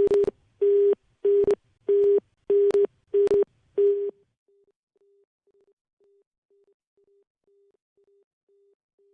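Telephone busy tone on a disconnected call line: evenly spaced beeps of one steady pitch, about three every two seconds. The beeps are loud for the first four seconds or so, then drop to faint beeps that keep going.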